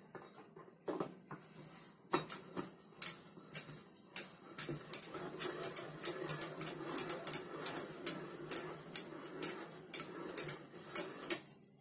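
A run of irregular light metal clicks and rattles over a soft rubbing, as the halves of an Arctic snowmobile variator (CVT drive clutch) are turned by hand onto the threaded shaft of a UD-25 engine.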